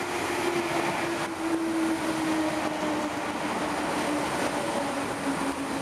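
Class 8100 DART electric multiple unit passing close by, its steady running noise carrying a whine that slowly falls in pitch.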